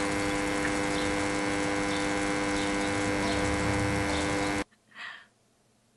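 Steady electrical buzzing hum, several held tones over a dense hiss, that cuts off abruptly about four and a half seconds in.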